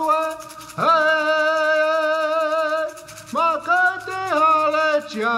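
Music: a voice singing long, wavering held notes in a chant-like style, the pitch bending from note to note a little past the middle, with a rattle shaken along behind it.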